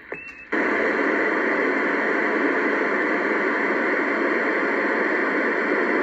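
President Washington CB transceiver receiving AM on channel 37 with no station transmitting: a brief high tone, then a loud, steady hiss of open-channel static from about half a second in.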